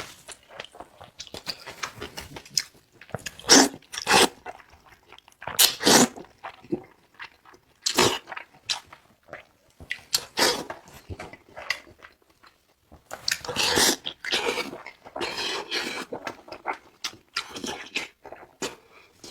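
Close-miked eating sounds of a person chewing and biting into lamb head meat: irregular wet smacks and crunches. There are a few louder bites in the first half and a dense run of chewing about two-thirds of the way through.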